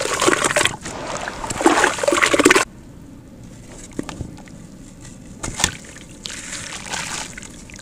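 Gritty sand-cement clump crumbling and breaking into water, a dense crackling with sloshing that cuts off suddenly under three seconds in, followed by a few small clicks and drips.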